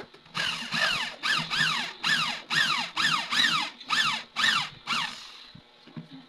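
Mini drill press drilling into aluminium in about ten short pecks, roughly two a second, each a pitched screech from the bit that falls in pitch as it cuts.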